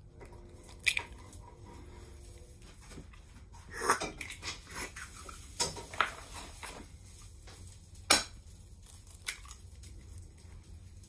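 Dishes and kitchen utensils clinking and knocking now and then as they are handled, about half a dozen sharp knocks spread out, the loudest around eight seconds in.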